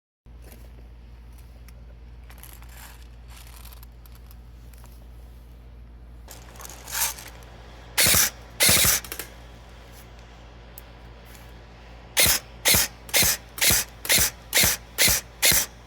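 G&G Warthog airsoft electric rifle firing single shots, each a short gearbox cycle: two shots half a second apart, then after a pause eight more in a steady rhythm of about two a second. The gun is cycling normally after being repainted. Faint handling noise comes before the first shots.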